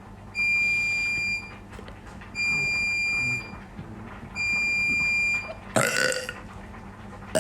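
Three long, steady electronic beeps about two seconds apart, then one loud burp near the end.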